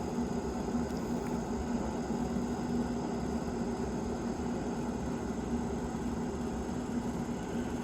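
Steady hum of a pellet smoker's draft fan running, holding one low tone over an even whir.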